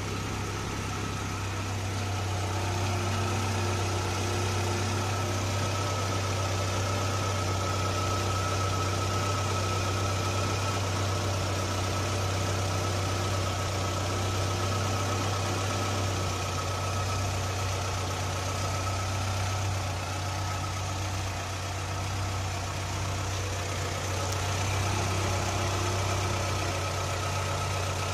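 Honda B16B 1.6-litre DOHC VTEC inline-four idling steadily, heard up close from inside the engine bay: its mechanical sound is a steady low hum under an even haze, with a thin steady high tone running through it.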